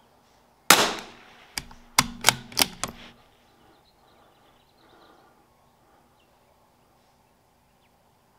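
A single shot from a CZ 457 .22LR bolt-action rifle, with a short ringing tail, followed about a second later by a quick run of about five sharp metallic clicks as the bolt is worked to eject and chamber the next round.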